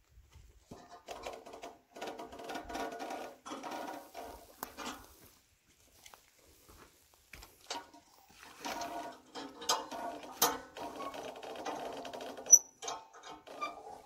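Metal parts of a manual sawmill squeaking and rattling in two long bursts as the log is shifted and adjusted on the bed, with a few sharp knocks; the loudest is a single knock near the end.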